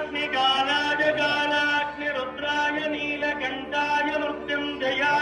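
Devotional chanting in short melodic phrases over a steady held drone.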